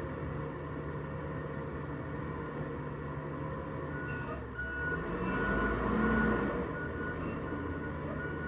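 Recycling truck's diesel engine running steadily, swelling louder and rising in pitch about five to six seconds in, then settling back.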